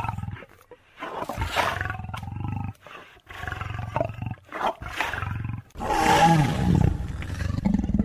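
A series of deep animal roars and growls broken by short pauses, the loudest and longest about six seconds in, falling in pitch.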